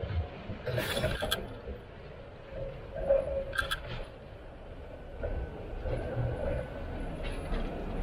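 Articulated electric tram approaching on curved track, its low rumble growing louder as it nears. A few sharp clicks come about one and three and a half seconds in, and a faint steady whine joins in the second half.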